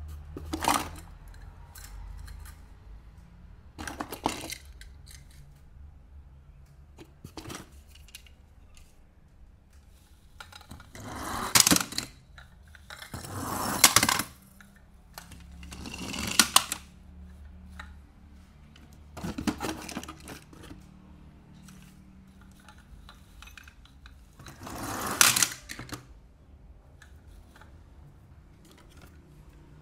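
Plastic and die-cast toy cars clattering against one another as they are handled and shifted around in a box, in about eight bursts of rattling a few seconds apart, the loudest near the middle.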